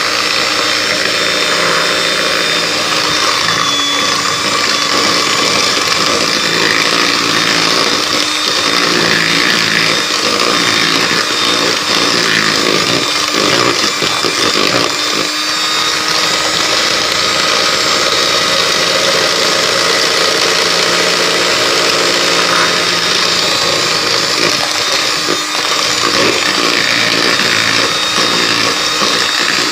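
Electric hand mixer running steadily, its beaters whisking a cake batter of creamed margarine, sugar and eggs in a plastic bowl.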